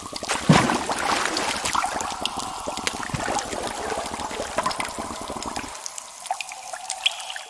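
Water rushing and splashing along the hull of a small boat under way, with many small splashes. A low rumble underneath cuts out near the end.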